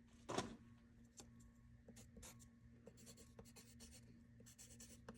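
Handwriting: faint, short scratchy strokes coming in little clusters as a word is written out, with a soft knock about half a second in.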